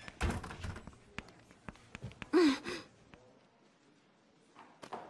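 Light classroom foley: a dull thunk just after the start and a few small knocks and clicks. About two and a half seconds in comes a short sigh-like vocal sound falling in pitch.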